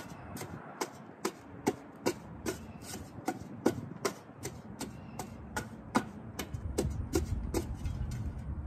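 A steel shovel blade jabbing into dry, packed soil in quick short strokes, about two to three sharp chops a second. A low rumble builds near the end.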